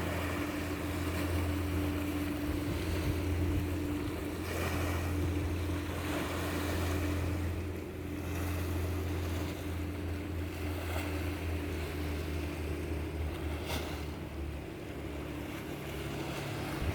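A steady, low engine drone with an even wash of wind or surf-like noise over it; the drone eases off near the end.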